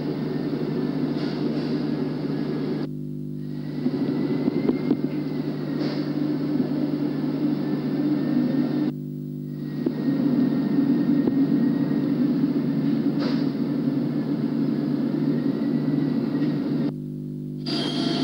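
Steady rumble of car engines on an old cine-film soundtrack with a constant hum underneath. The rumble cuts out briefly three times, about three seconds in, about nine seconds in and near the end, leaving only the hum.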